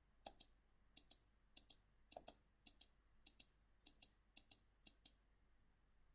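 Faint clicking at a computer: about nine double clicks, each a short press-and-release pair, evenly spaced about every 0.6 s.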